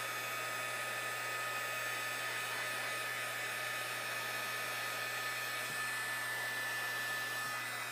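Craft embossing heat gun running steadily, blowing hot air to dry puddled water on watercolour paper: an even rush of air with a thin, high motor whine.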